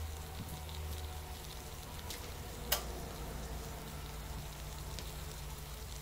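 Faint sizzling and ticking from water heating in a folded paper container over a small aluminium alcohol stove, with a sharp crackle a little before halfway through, over a steady low hum.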